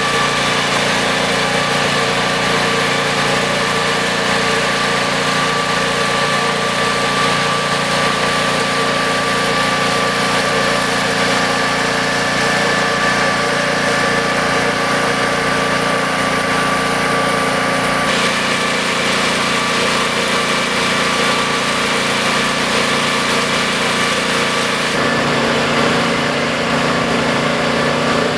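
Small petrol engine of a portable positive-pressure smoke-ventilation fan running steadily at speed. Its tone shifts slightly about two-thirds of the way through and again near the end.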